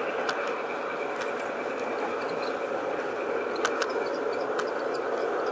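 G-scale garden-railway model train running along its track: a steady whir from its motor and gears and rolling wheels, with a few sharp clicks.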